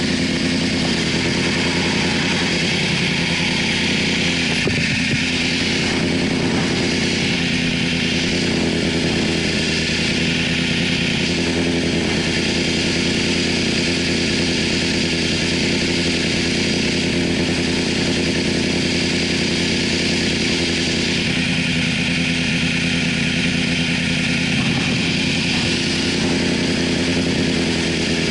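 Yamaha YZF-R6 sport bike's inline-four engine idling steadily at a standstill.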